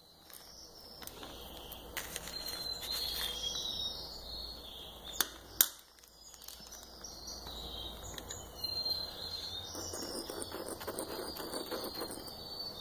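Faint rustling and handling of a small plastic bag of cosmetic pigment powder and a small jar of acrylic powder, with two sharp clicks a little after five seconds in.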